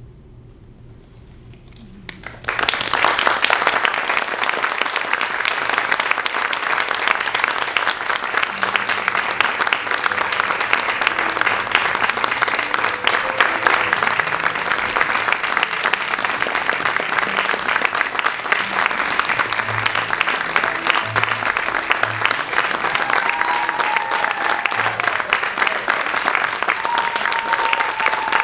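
Theatre audience applauding, breaking out suddenly after a quiet couple of seconds and then keeping up steadily.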